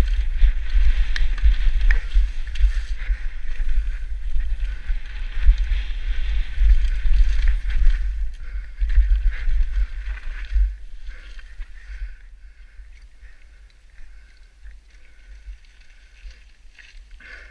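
Downhill mountain bike ridden fast over a rough dirt trail, heard from a helmet-mounted GoPro: wind buffeting on the microphone with tyres and the bike rattling over the ground. The noise drops away after about eleven seconds as the rider slows.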